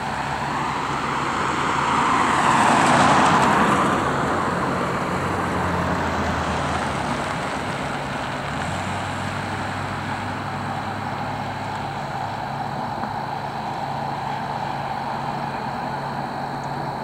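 A car passing close by, its engine and tyre noise swelling and fading about two to four seconds in, over a steady low engine hum.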